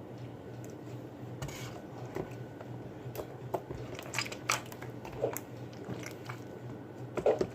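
Homemade slime being worked and squished, a scatter of short sticky clicks and squelches.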